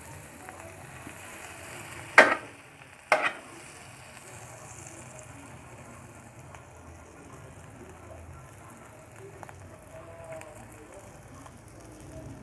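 Buttered bread frying in margarine on a pan, a faint steady sizzle, with two sharp knocks a second apart about two seconds in.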